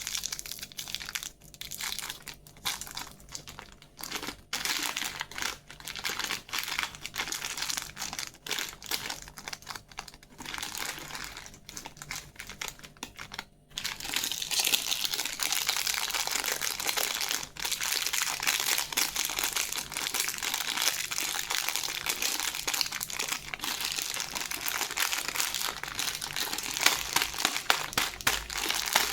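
Plastic candy wrappers crinkling as they are handled and unwrapped: stop-start crackling at first, then continuous and louder crinkling from about halfway.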